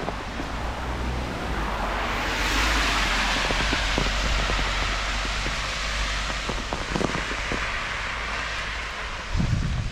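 Rain falling on a wet city street while a car passes, its tyres hissing on the wet road, swelling a couple of seconds in and slowly fading. A short low rumble comes near the end.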